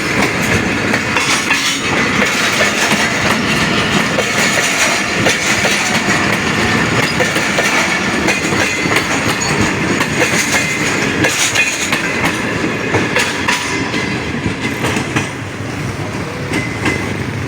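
Passenger coaches of an express train running past close by, the wheels clicking over rail joints in a steady, loud rumble that gets a little quieter near the end.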